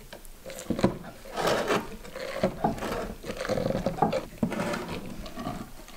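Salted shredded cabbage being stuffed and pressed down by hand into a glass jar for sauerkraut: an irregular run of wet crunching and rubbing noises, with one sharp knock a little under a second in.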